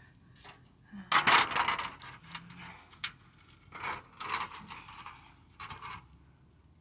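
Swamp cooler pads being handled and pushed into place, with scratchy rubbing and rustling in several irregular bursts. The loudest stretch comes about a second in.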